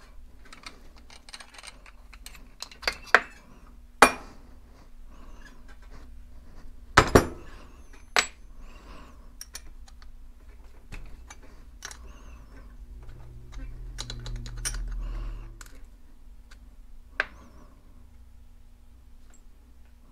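Hand tools and small metal parts of an Annovi Reverberi XMV pressure-washer pump head clicking and clattering on a workbench tray while the pump is being taken apart, with a few sharp knocks. A low hum runs for about two seconds past the middle.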